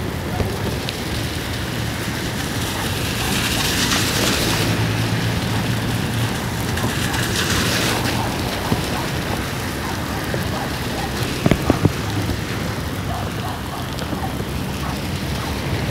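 Heavy rain pouring steadily onto a flooded road. Twice the hiss swells louder as vehicles drive through the standing water, with a low engine hum underneath.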